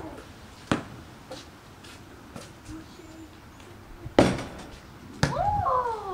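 A basketball striking the rim and backboard of a portable driveway hoop with a loud ringing bang about four seconds in, after a single sharper knock about a second in. Near the end a voice calls out in a long sliding exclamation.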